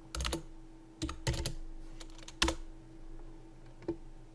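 Computer keyboard keys tapped in short, irregular clusters, typing a number into a settings field, over a faint steady hum.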